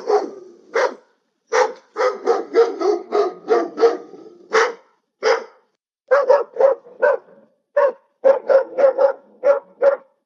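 AI-generated sound effect of a dog barking, played back: many short barks, two to three a second, in several runs with brief gaps between the clips.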